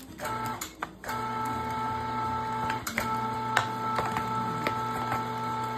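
Electric meat grinder motor running with a steady hum while ground venison is pushed into a meat bag. The hum starts just after the opening, cuts out briefly near one second in, then runs on, with a few sharp clicks over it.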